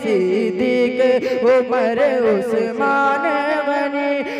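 A boy singing an Urdu naat unaccompanied, his voice sliding through ornamented turns and then holding one long steady note about three seconds in.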